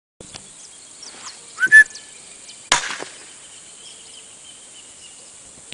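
A single .22LR shot through a Silencer Designs Mosquito suppressor: one sharp, short crack near the middle. About a second before it comes a loud, short, rising whistle-like call, with faint bird chirps in the background.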